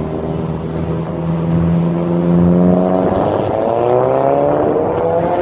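Saab 9-3's exhaust echoing in a road tunnel: a steady drone, then about three seconds in the pitch climbs as the car accelerates.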